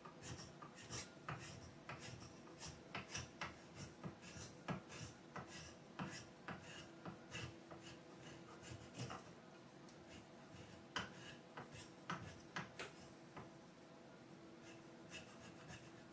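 Faint, irregular hand strokes scraping a wooden axe handle, a couple per second, as the handle is shaped down to fit the axe head.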